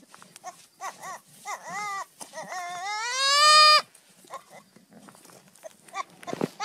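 Young goat bleating: a string of short calls, then one long bleat rising in pitch about three seconds in. A low knock near the end.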